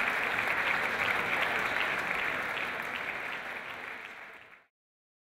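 Applause from members of parliament after a speech, a dense patter of many hands clapping. It fades from about three seconds in and cuts off abruptly near the end.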